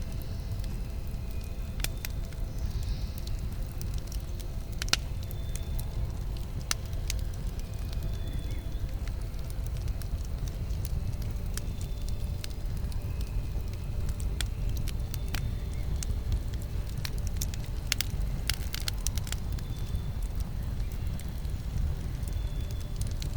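Campfire burning: a steady low rumble from the flames under scattered sharp crackles and pops from the burning wood. There is one loud pop about five seconds in, and a quick run of crackles about three-quarters of the way through.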